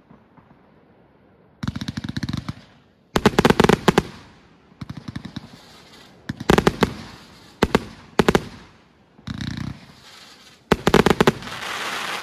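A 221-shot firework cake firing in volleys: clusters of rapid sharp reports, one to two seconds apart, the last volley trailing off in a steady hiss.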